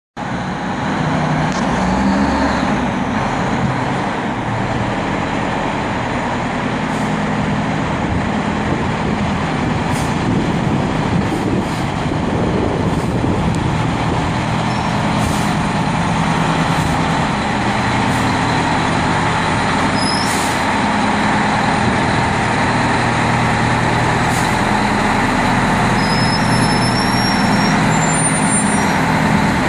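Large airport crash-rescue fire truck's diesel engine running steadily as the truck drives slowly out of its station bay, with a few brief high squeals in the second half.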